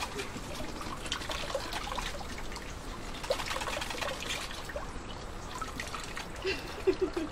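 Manioc (cassava) liquid trickling and dripping from a woven basketry sieve into a basin of the same milky liquid as wet grated pulp is kneaded and squeezed by hand, with small irregular splashes throughout.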